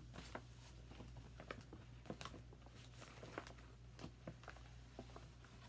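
Faint crinkling and rustling of a plastic project bag being handled and rummaged through, with scattered small clicks.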